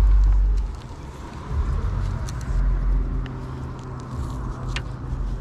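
A steady engine hum, with low wind rumble on the microphone that is loudest in the first second. A few faint clicks come and go.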